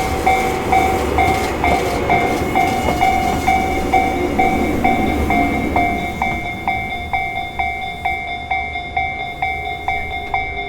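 Japanese level-crossing warning bell ringing in an even two-tone beat, about two strikes a second, while a Tobu Isesaki Line train runs through the crossing. The train's rumble fades away about six seconds in, leaving the bell ringing on its own.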